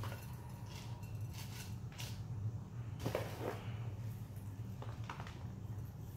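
Gritty potting mix of pumice and bark being poured from a plastic container into a plant pot and spread around: several short, soft pours and rustling scrapes, over a steady low hum.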